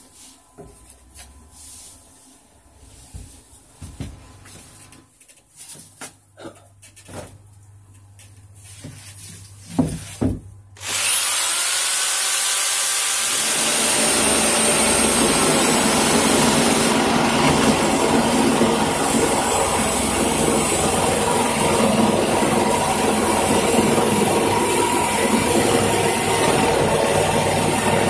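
Light rustling and knocking as a paper template and foam board are handled. About 11 seconds in, a handheld corded power saw starts up and runs steadily, cutting through extruded polystyrene (XPS) foam board.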